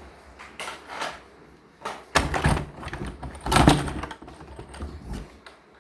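Irregular clicks and knocks of objects being handled, with heavier thumps a little over two seconds in and again about three and a half seconds in.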